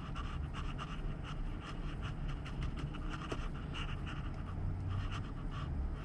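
A steady low hum, with soft irregular clicks and rustling from hands pressing the buttons on a 12V compressor fridge's control panel.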